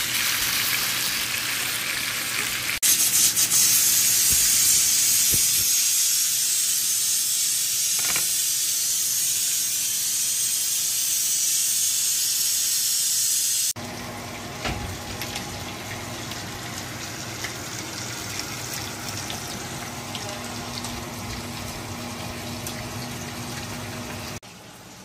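Chicken breasts sizzling in oil in a ridged grill pan, a steady loud hiss that jumps louder about three seconds in. About fourteen seconds in it cuts off sharply to a quieter steady hum with faint ticks.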